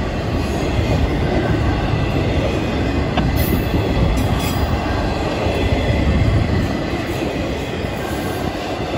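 Florida East Coast Railway intermodal freight train's flatcars, loaded with highway trailers, rolling past at close range: a steady rumble of steel wheels on the rails, with a couple of sharp clicks about three and four seconds in.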